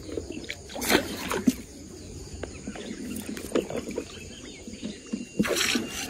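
Splashing of a hooked fish thrashing at the water's surface, loudest about a second in and again near the end, with smaller splashes between.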